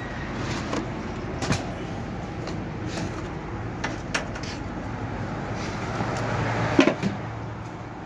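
Plastic washing-machine casing knocking and clattering as it is handled and set in place: a few sharp knocks, the loudest near the end, over a steady low hum.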